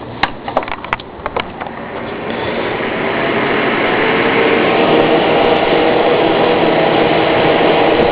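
A few clicks as the plug goes in, then a Frost-Aire ducted table fan starts and spins up, its rush of air growing louder over about three seconds and then running steadily with a faint motor hum.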